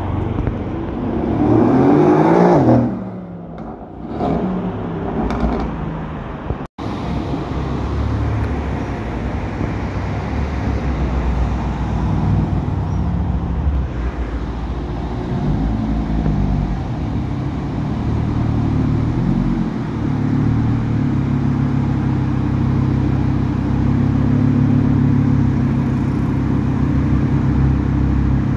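A car engine accelerating hard, its pitch rising to a peak about two to three seconds in and then falling away. After a brief dropout near seven seconds, a steady low engine rumble with a few gentle rises and falls in pitch.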